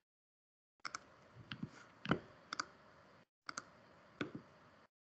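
Scattered sharp clicks and light knocks of someone working at a computer, irregularly spaced, several of them in quick pairs like double-clicks.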